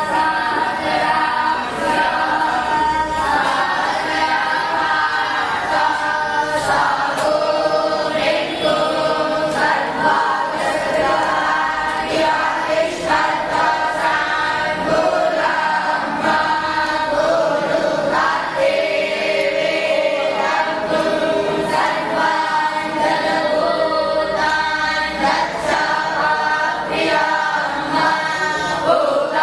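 A group of voices chanting together in unison, a continuous sung recitation with held notes, plausibly the young Brahmin students (batuks) reciting; faint sharp clicks come here and there.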